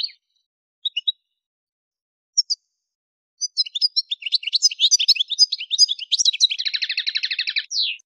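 Goldfinch (Algerian Souk Ahras song type) singing. A few short chirps come first, then a fast twittering song from about three and a half seconds in, ending in a rapid even trill and one falling note.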